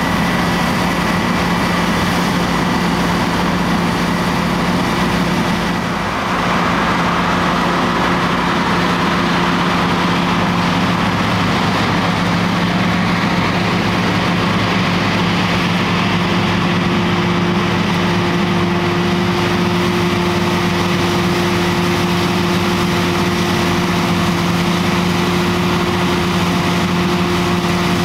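New Holland CX8.70 combine harvester running steadily while threshing wheat: a constant engine hum with a thin whine from the threshing machinery. There is a brief dip about six seconds in, after which the low hum is stronger.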